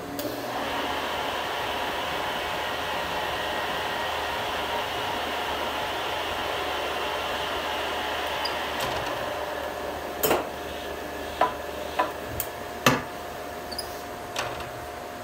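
Metal lathe starting up and running steadily, a tap turning in the four-jaw chuck against a disk blank on the tool post to cut worm-gear teeth; the noise dies away after about nine seconds. This is followed by several sharp metallic clunks.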